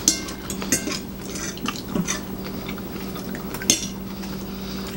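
Metal forks clinking and scraping on ceramic dinner plates, a few separate clicks with a brief metallic ring, over a steady low hum.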